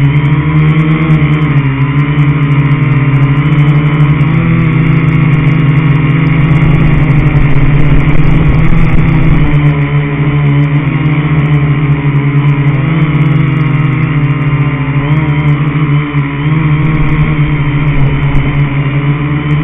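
Aerosky quadcopter's electric motors and propellers running continuously, a loud steady buzzing hum whose pitch wavers slightly as the throttle shifts.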